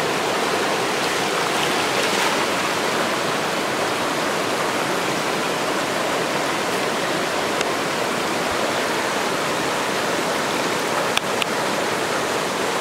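Steady rushing of a shallow, rocky stream running over riffles.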